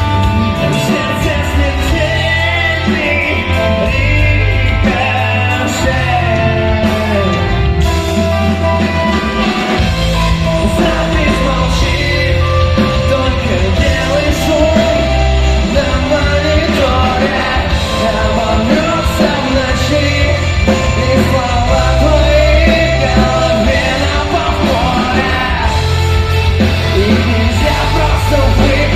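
Rock band playing live with a singer, loud and continuous, with a heavy low end and frequent sharp drum-like strikes.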